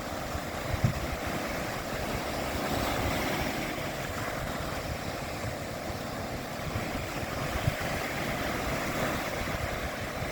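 Black Sea surf washing steadily onto the shore, with wind buffeting the microphone in low rumbles and a couple of brief gusts.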